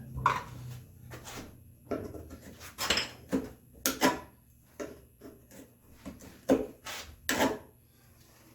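Hand tool scraping and picking debris out of the bottom of a mortise in red oak: a dozen or so irregular short scrapes and knocks of steel on wood, with short pauses between.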